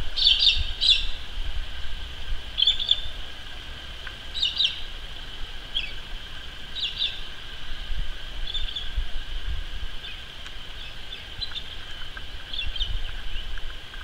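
Galahs calling: short, high, scratchy notes, often in quick pairs, repeated every second or two.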